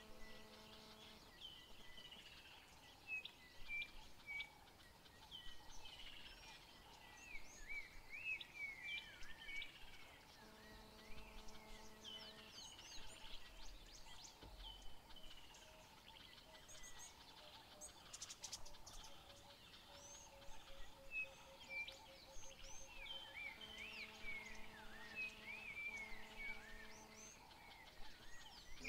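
Several wild birds chirping and calling, many short quick whistles that rise and fall, over faint open-air background noise.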